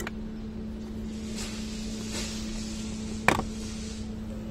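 Hands working the airbag horn pad loose from an Isuzu D-Max steering wheel: soft scraping and rustling, then one sharp plastic click a little over three seconds in as the pad shifts in its mount. A steady low hum runs underneath.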